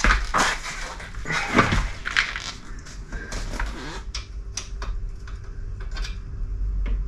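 Metal clicks and clinks of a steel pannier side rail and its fixings being handled and worked loose on a motorcycle's rear frame, with a couple of short grunts from the man doing it. The clicks come thickest about two thirds of the way through.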